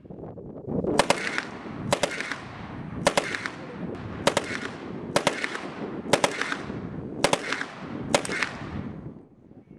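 STEN Mk II 9mm submachine gun firing about eight shots roughly a second apart, a few of them as quick pairs, each followed by a trailing echo.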